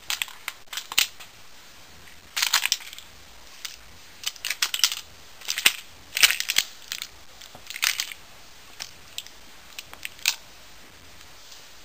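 Work boots stamping on a blue plastic toy gun, the plastic cracking and snapping under the treads. The sound comes in repeated short clusters of sharp crackles, with little thud.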